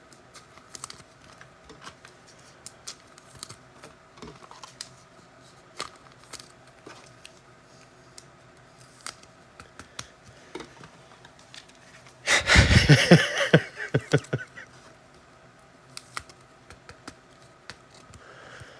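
Trading cards and pack wrappers handled on a table: scattered light clicks and ticks, with a loud burst of rustling lasting about two seconds, about twelve seconds in.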